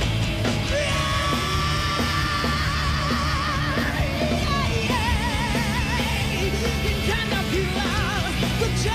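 Malaysian rock song: a male lead singer holding long notes with vibrato over guitar and drums, the music cutting in suddenly at the start.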